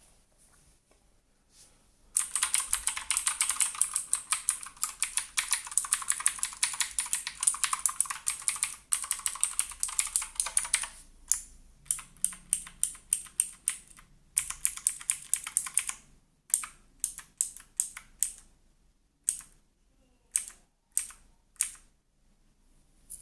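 Redragon Manyu (K579) mechanical keyboard being typed on. After about two seconds of quiet comes a fast, dense run of keystrokes. This gives way to slower, separate key presses with a second quick burst in the middle.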